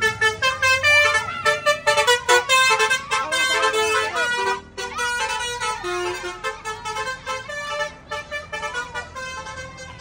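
Indonesian "telolet" bus horn, a multi-tone musical air horn, playing quick runs of short notes at several pitches, over excited shouting from a crowd of children.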